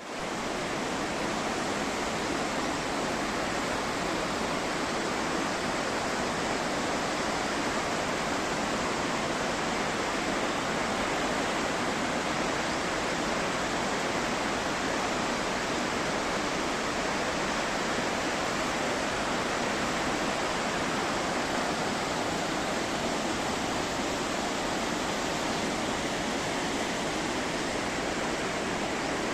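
A waterfall rushing with a steady, unbroken sound of falling water.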